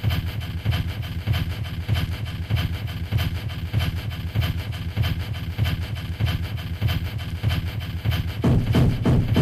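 Hardcore gabber techno: fast, heavily distorted kick drums hitting in a steady rhythm with a buzzing low drone. A fuller mid-range layer joins about eight and a half seconds in.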